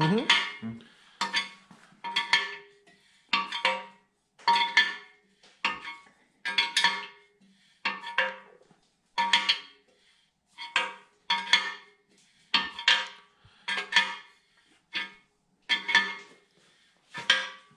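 Ratchet wrench clicking in short runs about once a second, swung back and forth on the threaded-rod cam bearing installer as it draws a new cam bearing into a Chevrolet 454 big-block's cam bore.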